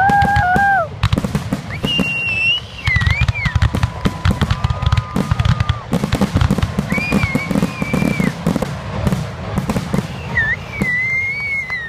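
Aerial firework shells bursting in quick succession, a dense run of bangs and crackling. Several high whistles glide over it.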